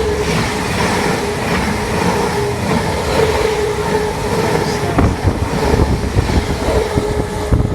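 Passenger train running in alongside the platform: a loud rumble of wheels on rails with a steady whine, and wheel clicks over the rail joints from about five seconds in.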